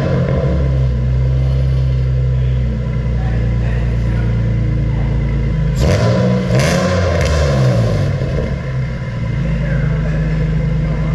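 Infiniti G35's 3.5-litre V6 idling through a freshly fitted cheap aftermarket exhaust with 4.5-inch tips, just after startup. About six seconds in it is revved once, the pitch rising and falling back to idle.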